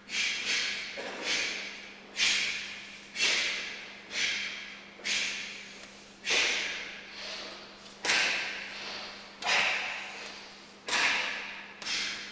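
Karate kata techniques, each marked by a sharp snap of the cotton gi and a forceful exhalation, about one a second, echoing in a large hall.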